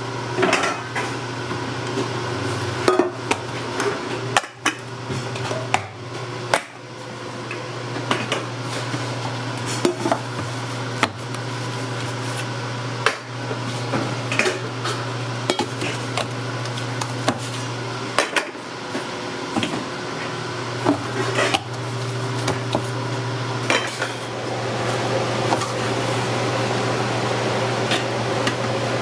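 Round aluminium dough pans clanking and knocking as they are handled and stacked on a stainless steel table, over a steady low machine hum.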